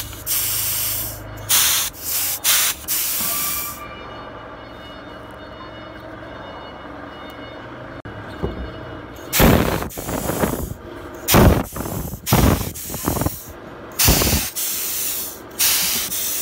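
Pneumatic bead breaker's air cylinder being cycled by its hand valve: repeated short hisses of compressed air as the ram is driven out and let back. There is a quieter stretch in the middle, then more loud bursts as the ram presses on the tyre bead.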